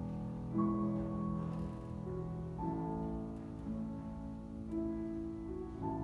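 Slow instrumental music of held chords that change every second or so.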